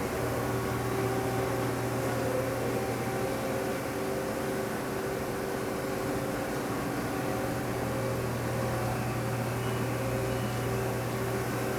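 Steady hum of a Mitsui Seiki HT4A CNC machining centre under power and idling: a low drone with a few steady higher tones over an even hiss.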